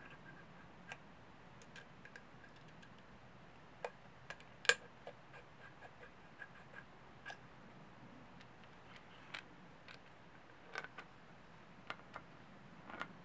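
Scattered small metal clicks and light ticks from hand work on a Piranha 140cc engine's valve tappet: the adjuster nut and screw are handled and the finned tappet cover is set back in place. The sharpest click comes a little under five seconds in.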